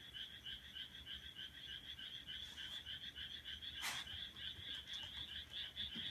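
Frogs calling in a steady, rapid pulsed chorus, about five calls a second, faint in the background. A single sharp click about four seconds in.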